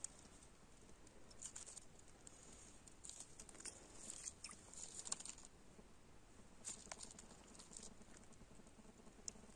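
Near silence broken by faint scattered clicks and rustles of hands handling a fishing line and tackle, a little busier in the middle.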